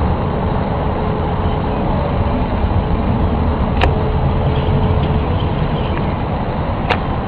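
A loud, steady low rumble with a faint steady hum over it for the first five seconds, broken by two sharp clicks about 4 and 7 seconds in: an unexplained outdoor noise of the kind people film as a mysterious 'strange sound'.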